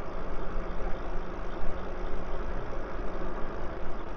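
Wind and road noise from an e-bike riding along an asphalt street: a steady low rumble with uneven gusts of rushing air over the microphone.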